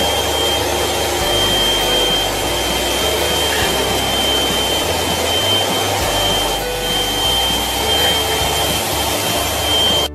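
Vacuum cleaner running steadily, a rush of air with a thin high whine, its nozzle held against a cat's fur.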